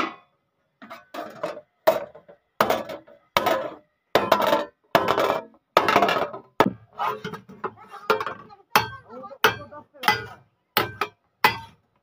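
Small hand hammer striking the edge of a rusty steel sheet against iron blocks, bending it into a pipe: a steady series of sharp metallic blows, roughly one to two a second, each ringing briefly.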